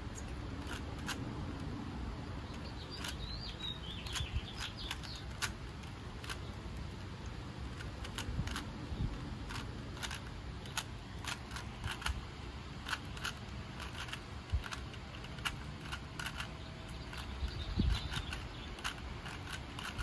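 A 3x3 Rubik's Cube being turned by hand during a speed solve: its plastic layers snap round with quick, irregular clicks and clacks, sometimes several in a second.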